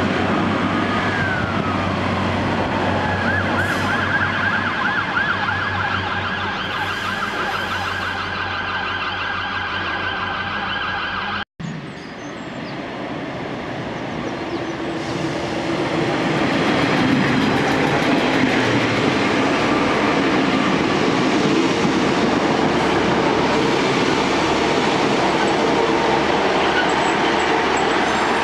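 Class 142 Pacer diesel railbus running at the platform with a steady low drone, while a high wavering tone warbles over it for several seconds. After a sudden cut, a diesel train approaches and its rumble swells and then holds loud.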